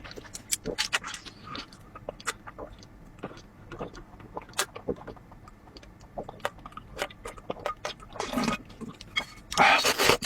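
Close-up eating sounds: irregular short wet clicks and smacks of chewing, with a longer noisy rush near the end.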